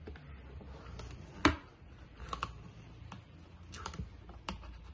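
A spatula scraping and knocking against a mixing bowl while folding meringue into cake batter: irregular soft clicks and taps, the loudest about a second and a half in.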